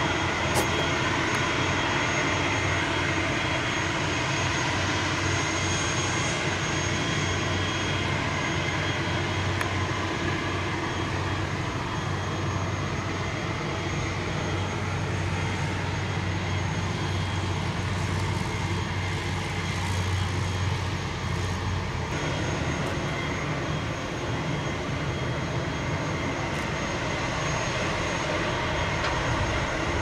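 Czech Sport PS-28 Cruiser light aircraft's Rotax 912 four-cylinder engine running at idle with the propeller turning, a steady drone. Its low droning note drops away about three-quarters of the way through.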